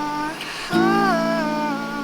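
Live acoustic song: a man singing, holding and bending long notes with no clear words, over a strummed acoustic guitar; a new chord and sung phrase come in just under a second in.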